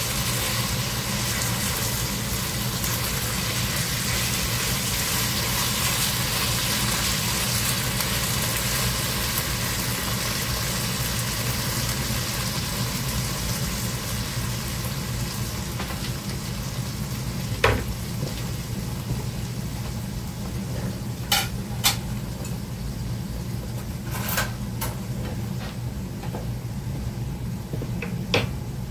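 Diced potatoes and carrots in eggplant tomato sauce sizzling in a skillet as they are stirred and reheated with a spatula, a steady hiss over a low hum. A few sharp clicks of utensils and dishes come in the second half.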